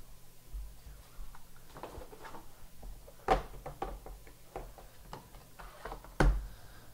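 Light clicks and taps of trading cards in rigid plastic toploaders being handled and set down on a playmat. The two loudest taps come about three seconds in and near the end.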